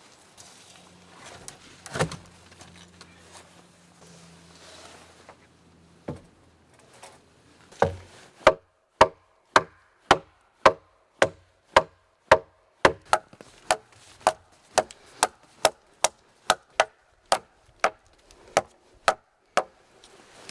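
A tool chopping wood: a few scattered knocks, then a steady run of about twenty sharp strikes, roughly two a second, that stops shortly before the end.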